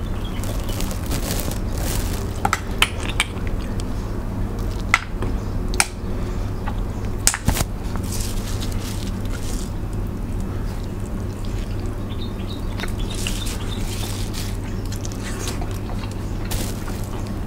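Sauce-coated shellfish being pulled apart and peeled by hand: wet squishing with sharp clicks and cracks of shell, most of them in the first half, over a steady low hum.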